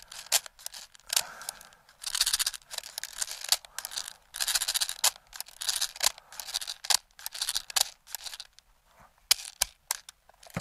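Steel BBs rattling and clicking in irregular bursts as they are loaded by hand into the Barra 400e BB rifle's magazine.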